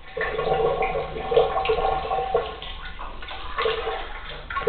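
Tap water running into a sink, its splashing changing irregularly as a pet paws at the stream.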